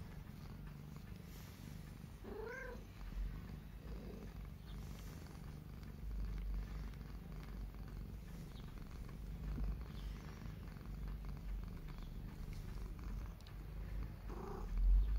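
Domestic cat purring steadily, with a short call about two and a half seconds in and another near the end.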